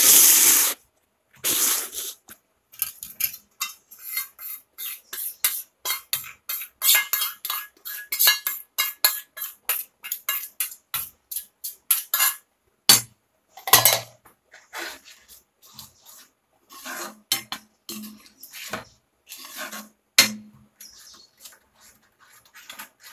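Steel spoon stirring and scraping inside a kadai while tomato-masala gravy is fried, giving a run of quick clinks and scrapes about two a second, with a few louder knocks against the pan.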